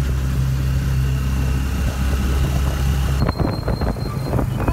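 Passenger tricycle running at steady speed: a low, even hum with wind rushing past. About three seconds in, the wind hiss drops away and a run of knocks and rattles sets in.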